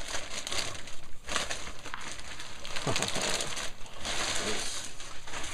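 Packaging rustling and crinkling as the speaker recone is unwrapped, a continuous scratchy crackle of plastic and packing material being handled.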